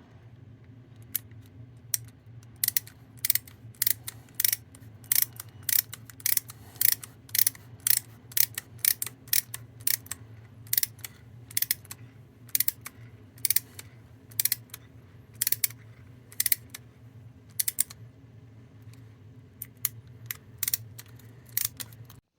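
A run of sharp metallic clicks, irregular at about two a second, from hand tools threading new fixing holes into a milling machine's body, over a steady low hum. The clicks stop abruptly near the end.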